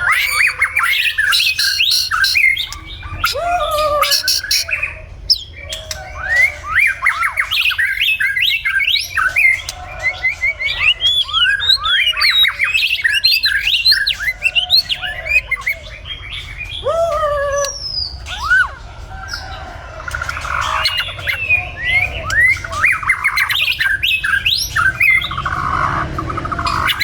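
White-rumped shama singing a long, varied song of quick whistled notes rising and falling in pitch, with harsher chattering notes mixed in.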